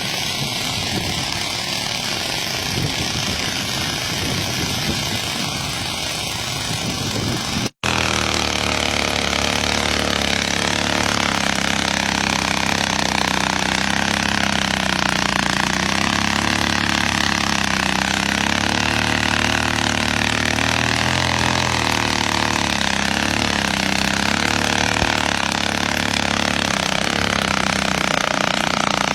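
Motorcycle engine running, first with a rougher, noisier sound. About eight seconds in the sound cuts out for an instant and the engine comes back with a steady, even hum.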